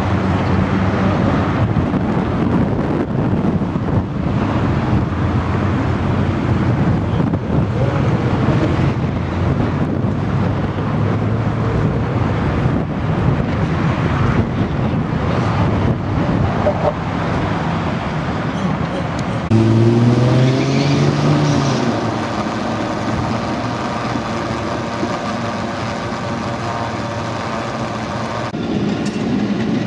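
Steady rumble of road vehicles on a city street. About two-thirds of the way through, a motor vehicle's engine starts to rev and rises in pitch for a couple of seconds before it fades back into the traffic.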